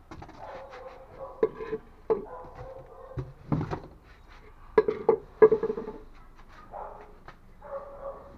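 A dog whining, in drawn-out pitched cries, with several sharp knocks and clatter between about one and six seconds in.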